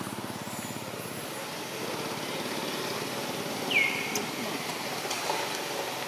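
Steady outdoor background noise with one short, high squeak a little under four seconds in that drops in pitch and then levels off.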